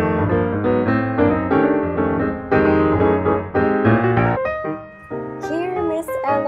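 Background piano music; about five seconds in it dips and gives way to another passage with gliding tones.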